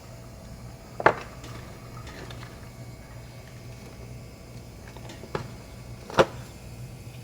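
A few sharp clicks and knocks from small tools or parts being handled during the repair, the loudest about a second in and another near the end, over a low steady hum.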